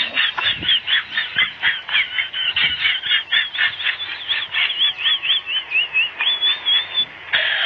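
A rapid run of high-pitched animal squeaks or peeps, several a second and often overlapping, each note arching up and down in pitch.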